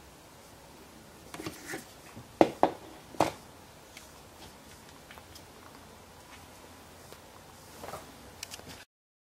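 Handling noise: a cluster of sharp clicks and knocks, the two loudest about a second apart, as a digital angle gauge is pulled off a plywood rotary-tool stand. A few fainter ticks follow as the stand is moved, then the sound drops out briefly near the end.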